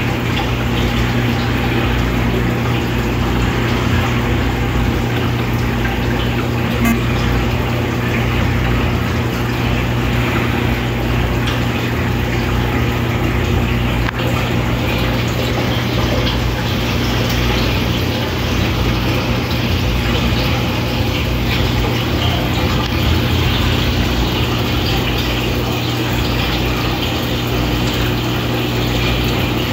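Steady electric hum under a constant rush of moving water from aquarium pumps and filtration, unchanging throughout.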